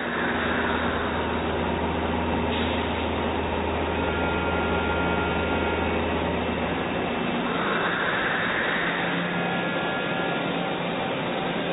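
Steady mechanical hum and hiss of a Doosan Puma MX1600ST CNC turn-mill lathe running, with a low drone that drops away about seven seconds in.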